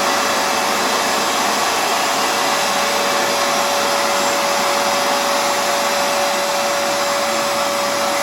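Hoover FloorMate Edge hard floor cleaner running steadily in wash mode, its suction motor giving an even airy noise with a steady whine, while its air-driven spin-scrub brushes turn and it puts down water.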